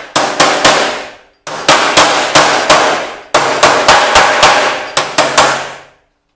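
A hammer striking sheet steel in three quick runs of blows, about three a second, each blow ringing on the metal.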